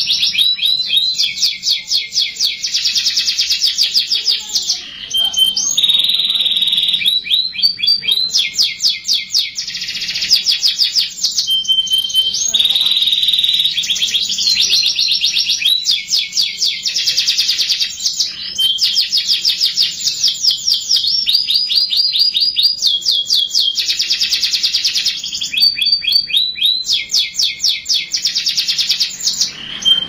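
Domestic canary singing a long, unbroken song of very fast trills and rolls, the phrase changing every second or two, with short held whistles between some phrases.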